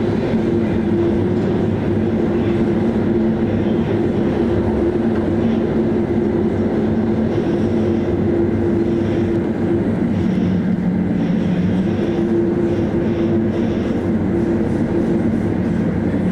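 Ship's engines running steadily on board, a constant low drone with several steady low tones.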